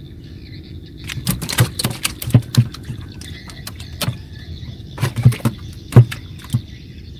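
Irregular knocks and thumps, several close together, as a freshly caught catfish thrashes and is handled while being taken off the hook, over a steady low hum.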